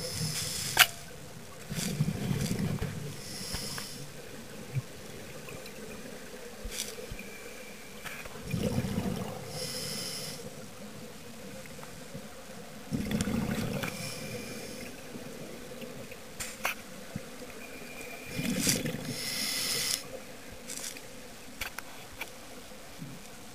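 Scuba diver breathing through a regulator underwater: about four slow breaths, roughly five seconds apart, each a hiss of air through the regulator and a low rumbling burble of exhaled bubbles.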